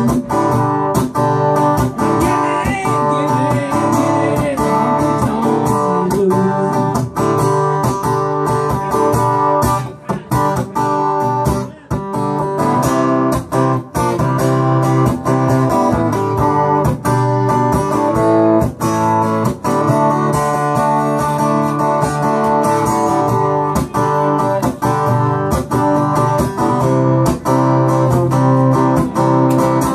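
Acoustic guitar strummed steadily through a chord progression, with a couple of brief breaks near the middle.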